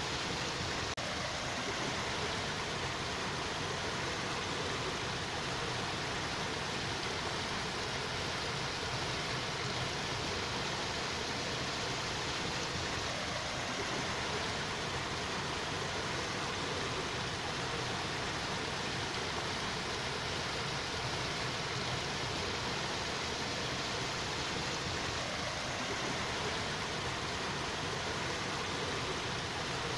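A steady, even hiss of noise that never changes in level or character, with no animal calls or distinct events standing out.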